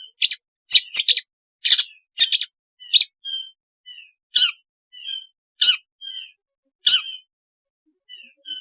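Long-tailed shrike (cendet) giving short harsh, rasping calls at irregular intervals, several in quick succession near the start and then about one a second, with soft thin chirps in between.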